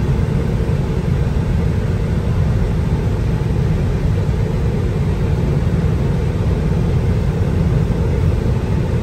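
Steady tyre and wind noise inside the cabin of a 2019 Tesla Model 3 Long Range Dual Motor cruising at about 80 mph. It is a low, even rumble from the tyres on the pavement, with no engine note.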